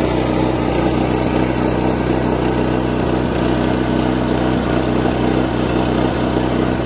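Small pull-start gasoline engine on a K&M rock crusher running steadily at one constant speed while the crusher grinds gold ore.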